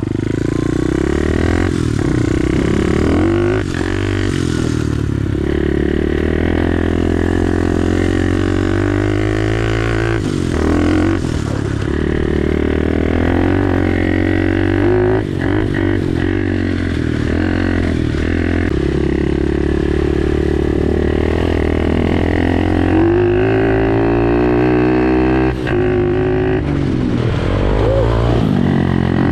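Dirt bike engine running while riding, its revs repeatedly rising and falling.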